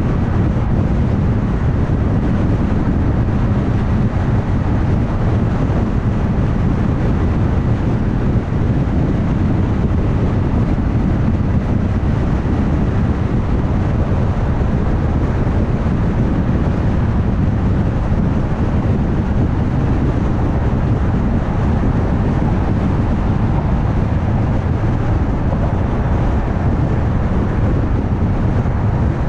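Car driving at highway speed: a steady, deep rumble of tyres on the road with wind noise, holding an even level throughout.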